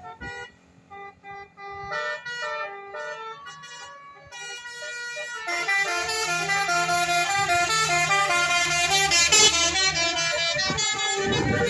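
Indonesian telolet horn, a multi-tone air horn on a bus, playing a quick tune of short stepped notes. It gets louder from about halfway in, with the vehicle's engine running beneath it and a low rumble rising near the end.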